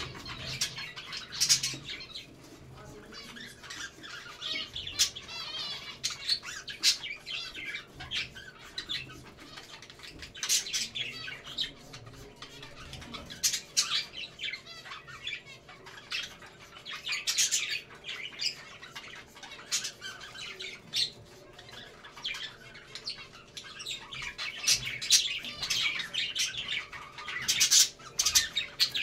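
Several budgerigars chattering and warbling, broken up by frequent sharp, high squawking calls.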